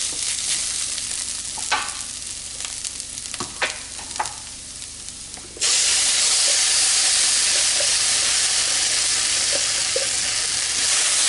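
A spatula stirring and scraping spiced onion and spinach in a nonstick frying pan, with a few sharp clicks. About halfway through, a loud, steady sizzle starts suddenly as spinach purée is poured into the hot pan.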